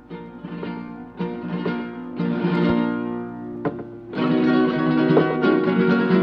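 Solo acoustic guitar music: chords struck about once a second, then fuller and louder playing from about four seconds in.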